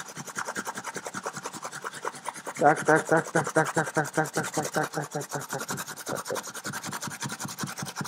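A fresh green apple being grated on the fine side of a metal box grater: a steady run of quick, even rasping strokes as the apple is rubbed up and down the blades into a bowl.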